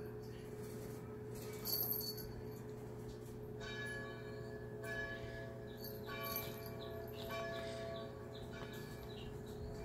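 Bell-like chiming notes, several held ringing tones beginning about three and a half seconds in, over a steady low hum. A brief jingle sounds near two seconds in.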